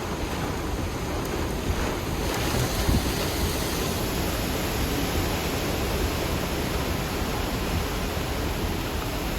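Wind buffeting the microphone: a steady rushing roar with a heavy low rumble.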